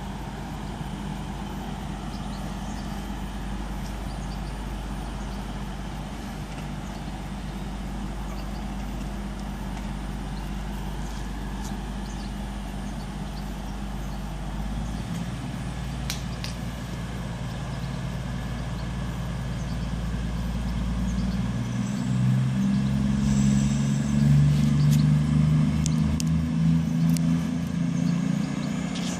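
Class 220 Voyager diesel multiple unit's underfloor diesel engines running as the train pulls away, a steady low engine hum that grows louder about three quarters of the way through as the engines work harder.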